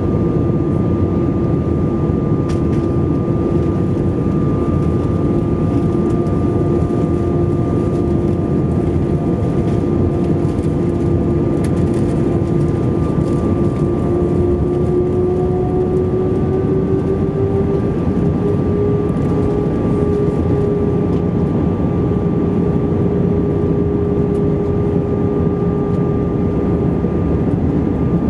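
Cabin noise inside an Airbus A320 on approach: a steady rush of airflow and the drone of its turbofan engines. The engine hum rises slightly in pitch about halfway through, then holds.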